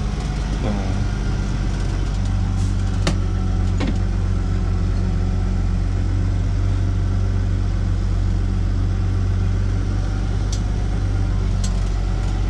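Deutz-Fahr Agrotron M620 tractor's diesel engine running steadily under load while compacting a grass silage clamp. A few sharp clicks come about three and four seconds in and twice more near the end.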